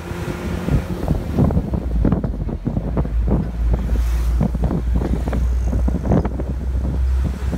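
Steady low rumble of a vehicle driving along a road, with irregular gusts of wind buffeting the microphone.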